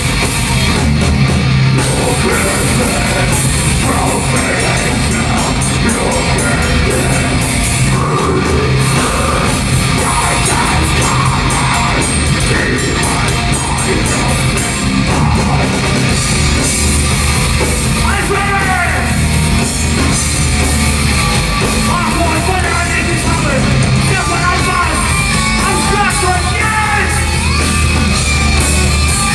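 Thrash/death metal band playing live at full volume: a dense wall of distorted guitar and drums, with shouted vocals coming in around the middle and carrying on to the end.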